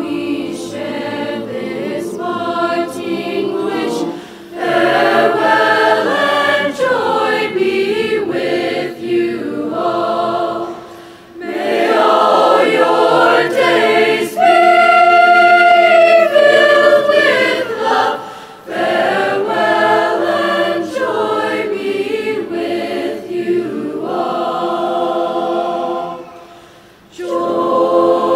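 A choir singing in long held phrases, breaking briefly between phrases about every seven seconds.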